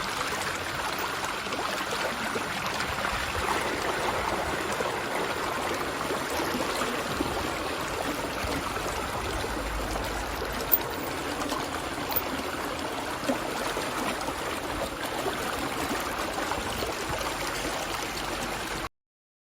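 Steady rushing and trickling of shallow water in a flooded rice paddy, with one sharp click about eleven seconds in. The sound cuts off suddenly near the end.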